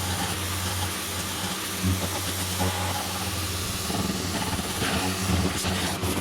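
Power tool spinning an abrasive web stripping disc, grinding old paint off an aluminium outboard motor part: a steady motor hum under the hiss of the disc on the surface.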